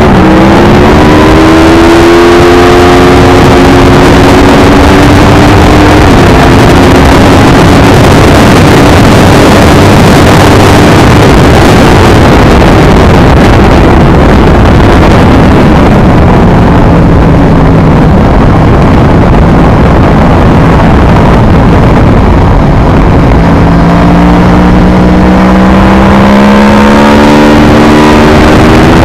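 Aprilia Tuono V4R's V4 engine running hard at track speed, with wind rushing over the bike. The engine note climbs over the first few seconds, drops lower through the middle, then rises steadily again near the end as the bike accelerates.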